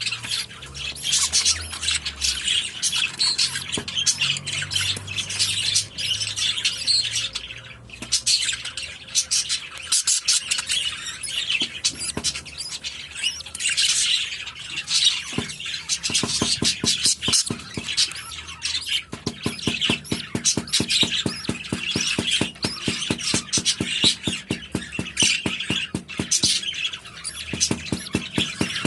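English budgerigars chattering, chirping and squawking continuously. A fast, even pulsing joins in about halfway through.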